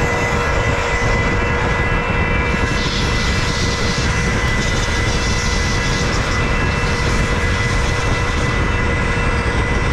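Centrifugal pump set running steadily under load, a loud constant motor drone with a steady whine in it; a louder hiss joins about three seconds in.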